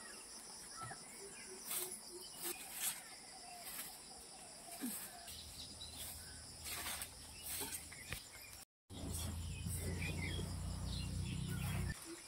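Short swishing strokes of a hand-held grass broom sweeping a bare earth yard, over a faint steady chirring of insects. A low steady rumble comes in about halfway through, breaks off briefly, and stops just before the end.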